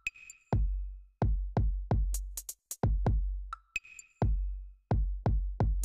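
Electronic background music: a drum-machine beat of kick drums and sharp high strikes, with short synth notes now and then.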